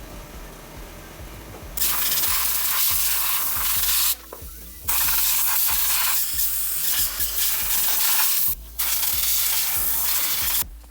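Three long bursts of loud, steady hissing from a jet of air or spray, each lasting a few seconds with short gaps between.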